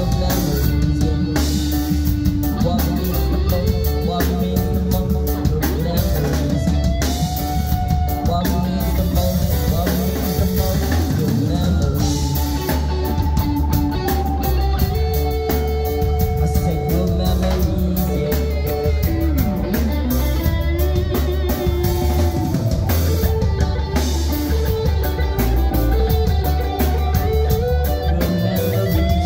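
Live rock band playing an instrumental jam: electric guitar lead lines with bending notes over bass guitar and a drum kit.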